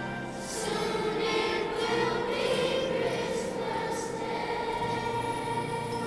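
Children's choir singing.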